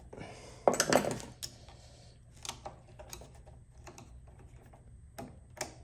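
Irregular metal clicks and clatter of parts on a Delta 22-580 planer's chain-linked elevation mechanism being worked loose by hand, loudest in a short cluster about a second in.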